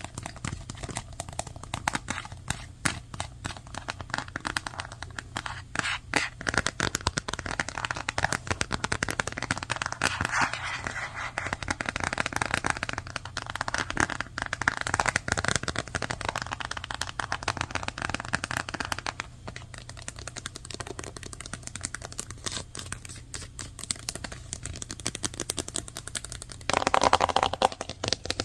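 Fast typing on a computer keyboard: a dense, rapid run of key clicks, with a louder burst of keystrokes near the end.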